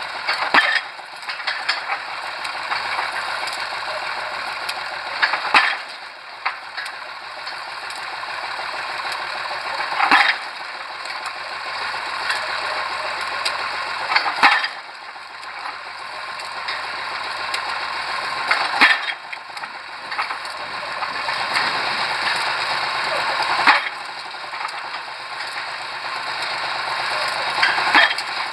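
Pile-driving rig's hammer striking a pile about every four and a half seconds, seven blows in all, with a steady mechanical rattle of the lifting gear between blows that grows louder toward each strike.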